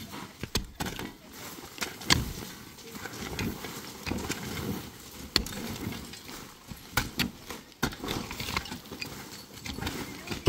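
Pickaxes striking and breaking up a packed-earth roof, sharp knocks and dull thuds at an irregular pace, several swings overlapping.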